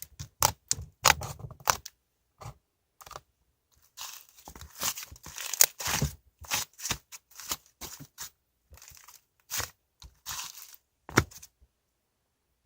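Irregular bursts of crinkling, tearing and crunching handling sounds.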